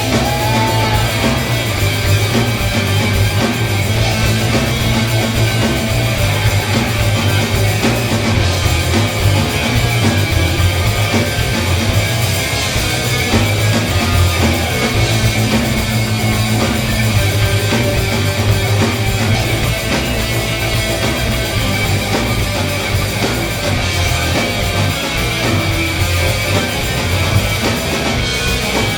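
Loud rock music with electric guitar, running steadily throughout.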